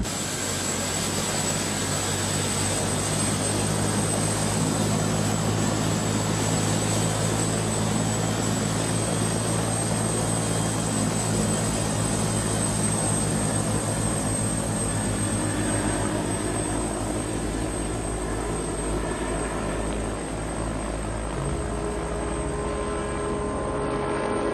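Police helicopter in flight: a steady rotor beat over a continuous engine noise with a high, steady turbine whine.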